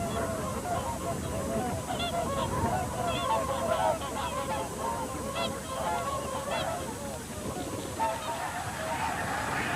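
A large flock of waterfowl calling, with many short honks overlapping continuously.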